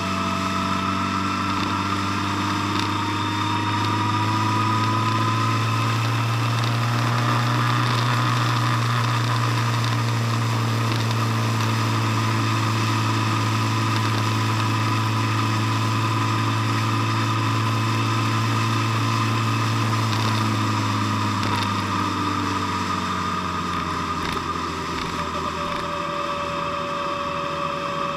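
Vehicle engine running steadily at cruising speed, a steady low drone with road and wind noise. It gets a little louder about four seconds in and eases off again in the last few seconds.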